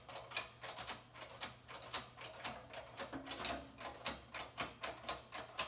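Hydraulic shop press being pumped by hand: a steady run of sharp mechanical clicks, about four a second, as the ram pushes a worn bearing off an electric motor's armature shaft.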